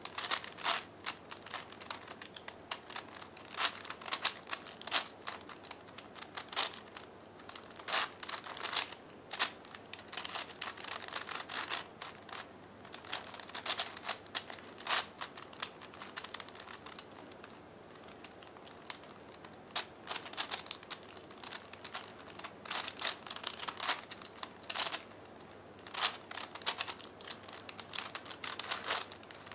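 The plastic layers of a 5x5x5 V-Cube clicking and clacking as they are turned by hand, in quick runs of turns with short pauses between them.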